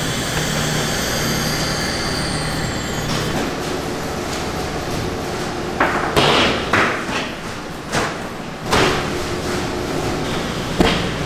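Steady machinery hum of a meat-processing hall, with some high steady tones that fade out about three seconds in. From about six seconds in come several separate knocks and thuds as pork half-carcasses and cuts are handled.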